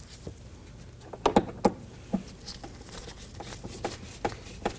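Screwdriver snugging down the screws of a plastic car door panel: a string of irregular clicks and light knocks, starting about a second in.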